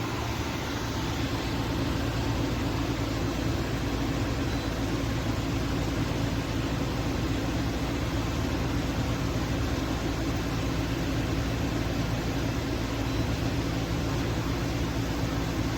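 Portable air conditioner running: a steady fan rush with a low compressor hum, rising slightly about a second in.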